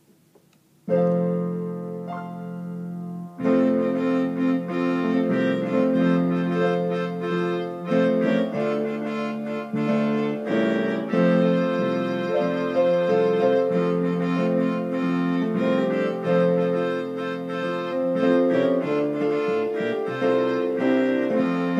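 Electric keyboard playing a gospel song in chords and melody. It comes in with a held chord about a second in, and the playing fills out from about three and a half seconds in.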